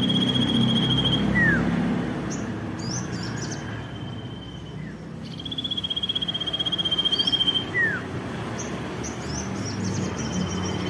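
Common iora (cipow) singing. A long, rapid, buzzy trill held on one high pitch, which the title likens to the wail of a kuntilanak ghost, ends about a second in and returns in the middle. Each trill is followed by a short downward whistle, and clusters of quick high chirps come in between.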